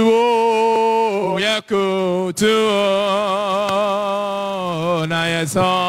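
A man singing solo into a hand-held microphone in long held notes with a wavering vibrato, pausing briefly for breath about one and a half seconds and again about two and a half seconds in.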